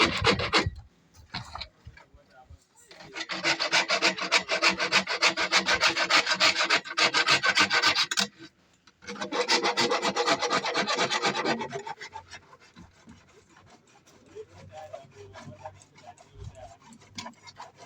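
Rapid rhythmic rasping strokes of a hand tool working a hard material, like sawing or filing, in two bouts of several seconds each, then quieter scattered sounds near the end.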